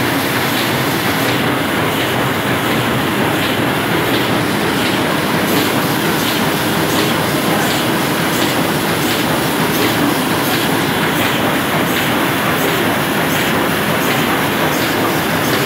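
Heidelberg 28×40 sheet-fed offset printing press running: a steady mechanical clatter with faint repeated clicks.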